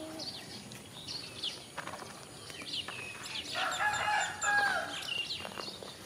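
A rooster crows once, starting about three and a half seconds in and lasting about a second and a half, over the steady chirping of small birds.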